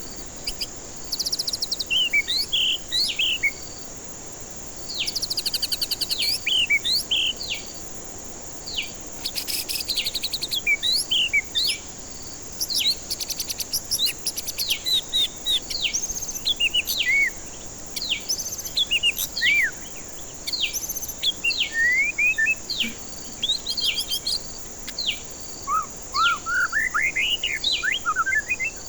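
White-rumped shama singing: quick phrases of short whistled slurs, up-and-down notes and rapid rattling trills, broken by brief pauses, over a steady high insect drone.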